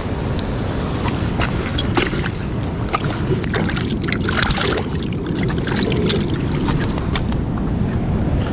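Surf washing over coastal rocks, a steady rushing rumble with wind buffeting the microphone. A run of short clicks and knocks comes through it from about a second and a half in to about the middle.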